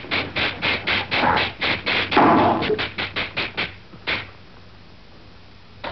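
A fast run of sharp slapstick hits, about five or six a second, with a short yelp about two seconds in. The hits stop a little before four seconds, one more comes just after, then only faint film hiss.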